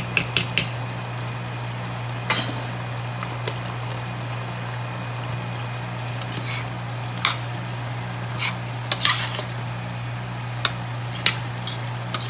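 A metal ladle stirs a stew of bottle gourd and tuna in a stainless steel pot, clinking and scraping against the pot about a dozen times at irregular intervals. A steady low hum runs underneath.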